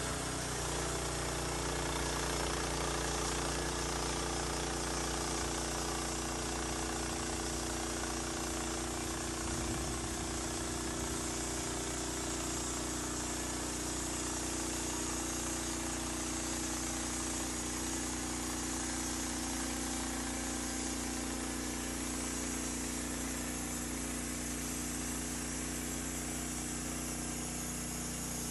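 Portable bandsaw sawmill's engine running steadily at a constant speed.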